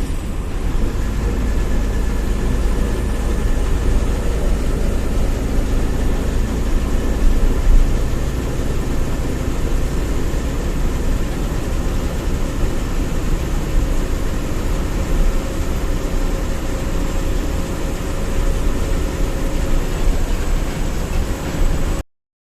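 Steady engine and road noise of a moving bus heard from inside, with a deep low rumble; it cuts off suddenly near the end.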